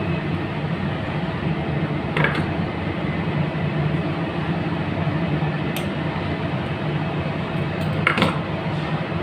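Steady low background hum with two brief rustles of wire being handled, about two seconds in and near the end.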